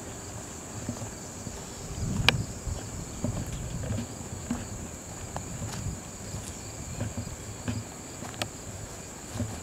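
A steady high-pitched insect chorus, with soft, irregular footsteps on a garden path underneath and a single sharp click about two seconds in.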